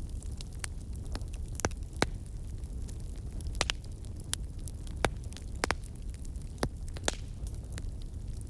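Wood fire burning, with a steady low rumble of the flames and irregular sharp crackles and pops from the burning wood.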